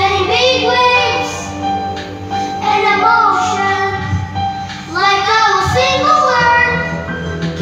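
Two children singing into a corded microphone over karaoke backing music, the girl's voice first and the boy's taking over about six seconds in.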